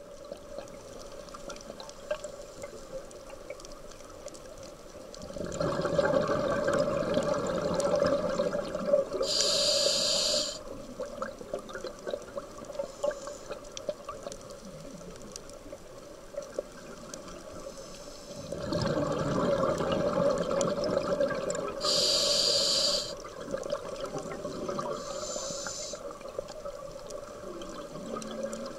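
Underwater audio of a scuba diver breathing through a regulator. Exhaled bubbles rumble twice, starting about five seconds in and again about two-thirds of the way through, and each time a short high hiss follows. A steady low hum runs underneath.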